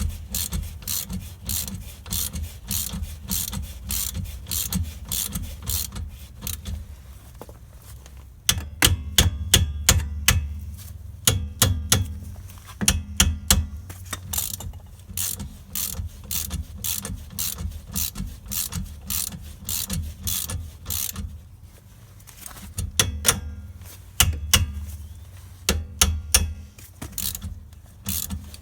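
Ratchet wrench clicking in repeated strokes while working a hand puller that draws a stuck bearing race off the rear stub axle. The clicks come in quick runs, louder and sharper in stretches partway through and again near the end.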